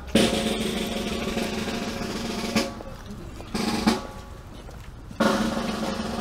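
Ceremonial snare drum rolls from a band's drummer. A long roll closes with an accented stroke about two and a half seconds in, a short roll closes with a stroke near four seconds, and another roll starts about five seconds in.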